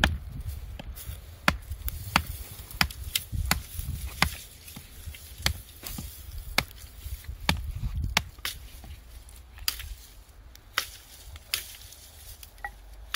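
Wood being chopped with a hand blade: about fifteen sharp, irregular strikes, roughly one a second, fewer and lighter near the end.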